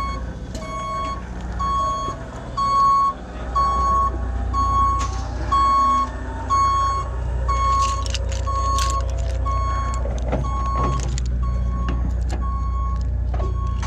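A vehicle's reversing alarm beeping steadily, about two beeps a second, over the low rumble of a running engine, with scattered clanks and knocks in the second half.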